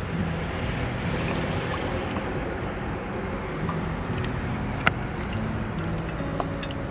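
Food frying in hot oil: a steady sizzle with scattered pops and clicks, one sharper pop about five seconds in.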